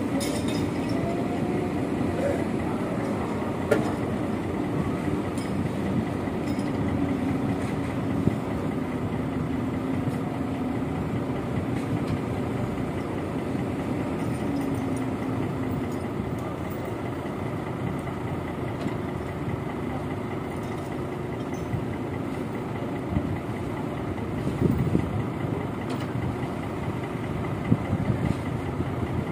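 An engine running steadily with a low hum, and a few brief knocks over it.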